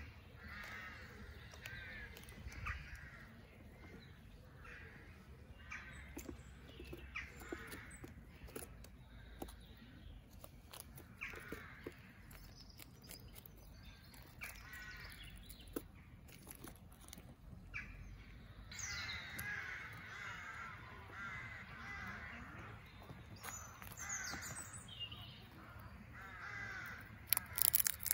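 Crows cawing again and again, harsh short calls coming in runs, busiest in the second half. Near the end, a run of loud, sharp clicks close by.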